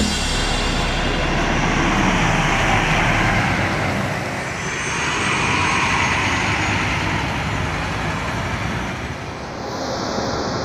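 City buses driving past: engine and road noise swelling and fading as each one goes by. Near the end the sound changes to a steadier one with a thin high whine.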